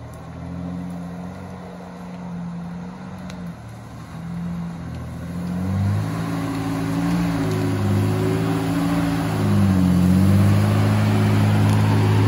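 1984 Toyota pickup's engine running as the truck drives a muddy trail, its pitch rising and falling with the throttle several times. It grows steadily louder as the truck comes closer.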